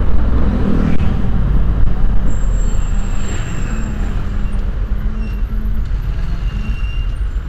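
Motor vehicle engines and road traffic running steadily, a heavy low rumble with an engine hum through it.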